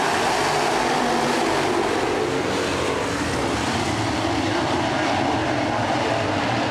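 A pack of dirt crate late model race cars racing together, their crate V8 engines running hard in a steady, loud, dense drone that holds an even level throughout.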